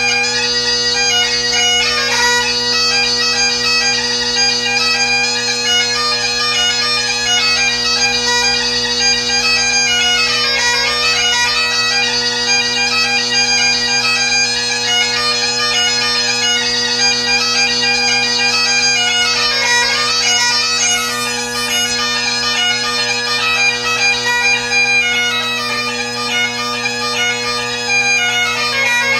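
Great Highland bagpipe played solo: the drones hold one steady low chord under the chanter's melody, which changes notes quickly and without a break.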